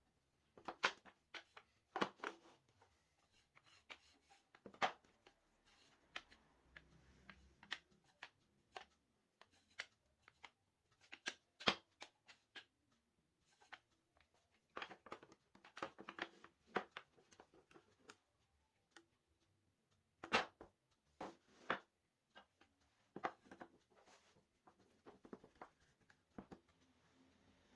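Handling noise: irregular light clicks and knocks of small hard objects being picked up and set down, some in quick clusters, with short pauses between.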